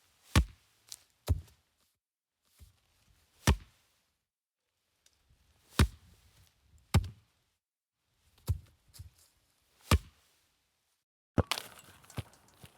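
A soccer ball being kicked: a series of about a dozen single dull thuds, spaced irregularly around a second apart, with a brief rougher rustling burst near the end.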